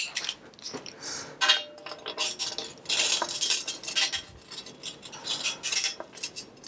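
Irregular metal clinks, taps and rattles as the parts of a thirty-year-old Ridge Runner mountain bike are handled during disassembly.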